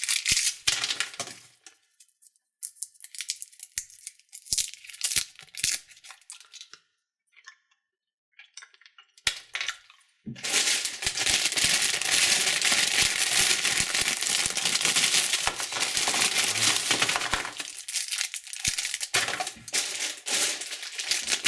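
Plastic candy wrappers crinkling and tearing as they are handled: scattered crackles at first, a short lull, then continuous dense crinkling through the second half.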